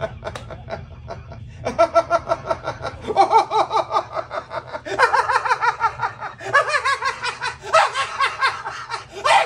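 A man laughing hard in several bouts of quick rhythmic ha-ha pulses, starting a second or two in and breaking off briefly for breath between bouts.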